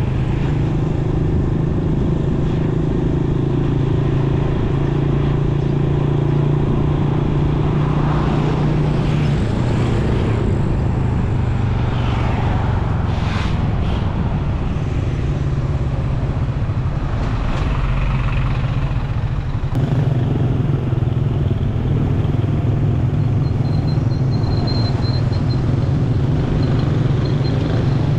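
Motorcycle engine running steadily under way, with road and wind noise.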